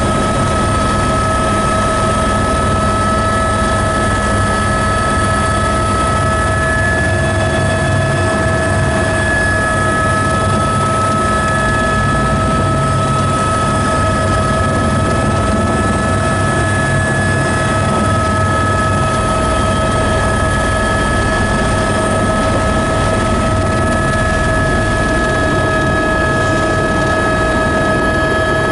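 Helicopter heard from inside its cabin on the approach to land: steady turbine and rotor noise, with a constant high whine over a low rotor beat.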